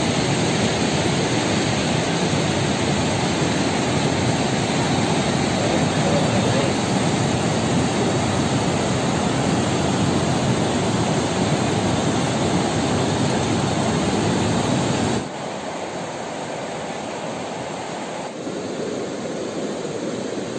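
River water rushing through the open sluice gates of a barrage and churning in rapids below: a steady, loud rush that drops suddenly to a quieter rush about fifteen seconds in.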